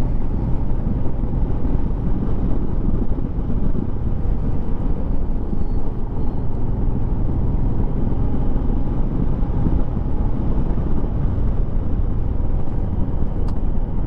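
Royal Enfield Himalayan's single-cylinder engine running steadily at riding speed, under a constant rush of wind over the camera.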